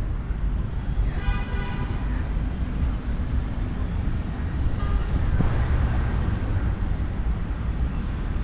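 City road traffic: a steady rumble of passing cars, with one vehicle passing louder about five seconds in.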